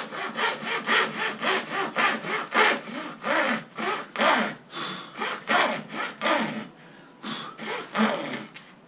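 Hacksaw cutting through a light Kevlar-reinforced skin, worked with no pressure beyond the saw's own weight. It makes even back-and-forth rasping strokes, about two a second, that slow and fade in the last couple of seconds.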